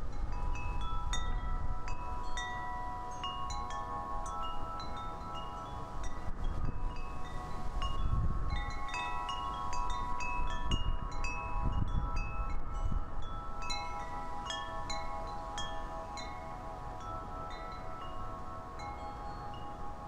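Wind chimes ringing in the wind, several long tones overlapping with quick, higher pings. Wind gusts on the microphone add a low rumble, strongest around the middle.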